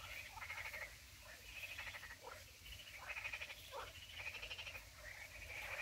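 Frogs calling from a reedy pond: a run of rapid, pulsed croaks, each about half a second long, repeating roughly once a second.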